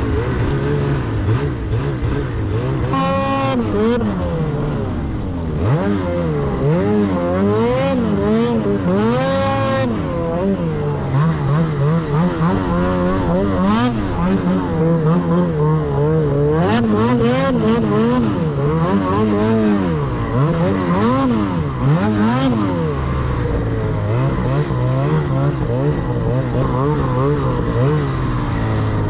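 Snowmobile engine being ridden hard through deep snow, its pitch rising and falling over and over as the throttle is worked.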